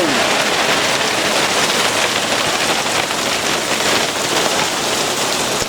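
Heavy rain coming down hard, a steady loud hiss with no let-up.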